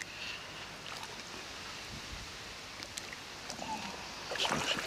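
Faint steady outdoor background noise with a few light clicks, and a short louder rustle about four and a half seconds in.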